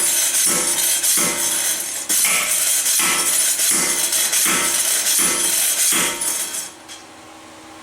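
Homemade slide hammer, a heavy steel pipe on a 1/2 inch all-thread rod, slamming again and again against the nut to pull a seized rear wheel bearing hub. Each metal-on-metal blow rings, about one every two-thirds of a second, and the blows stop near the end.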